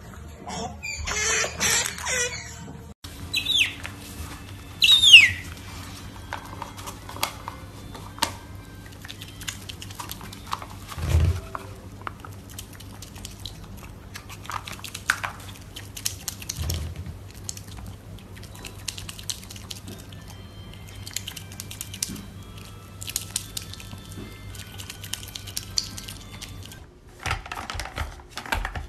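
Pet otters chirping and squeaking, with two loud falling squeals a few seconds in. Scattered clicks and a couple of soft low thumps come between the calls.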